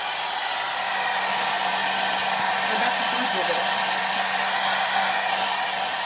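Hand-held hair blow dryer running steadily: a constant rush of blown air over a steady low motor hum, getting slightly louder about a second in.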